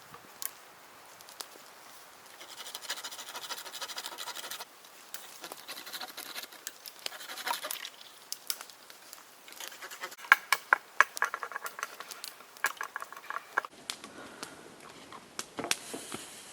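Wood being handled and worked in the forest: scraping and rustling, then a quick run of sharp wooden knocks and clicks.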